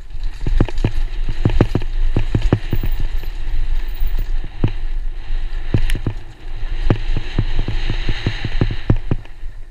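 Downhill mountain bike clattering over a rough dirt trail: rapid, irregular knocks and rattles of the bike over a steady rumble of the tyres, with a rush of noise strongest near the end. The clatter stops just before the end.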